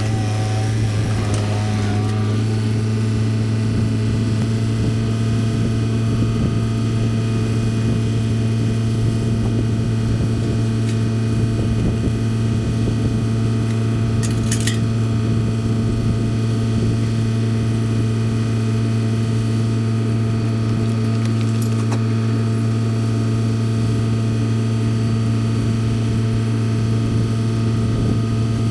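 An engine running at a steady speed throughout, with a brief rattle about halfway through.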